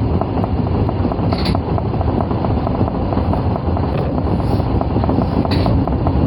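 Osaka Metro 22 series subway train running at speed, a loud steady rumble of wheels on rail threaded with fine rapid ticks, with a short hiss twice.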